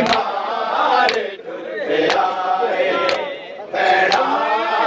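A crowd of men chanting a mourning lament together while beating their chests in matam, with a sharp unison slap about once a second.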